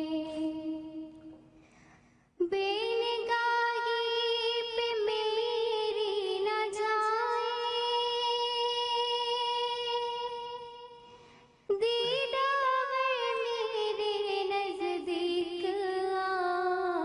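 A single high voice singing an Urdu naat, a devotional song in praise of the Prophet, in long drawn-out notes with wavering pitch. Each held note fades away, and a new phrase starts sharply about two and a half seconds in and again near twelve seconds, the last one sliding slowly downward.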